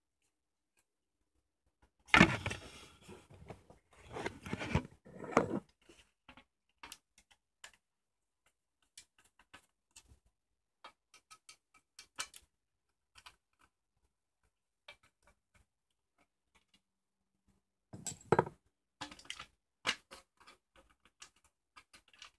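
Handling noise: scattered clicks and taps, with louder clusters of rustling knocks about two and four seconds in and again near the end.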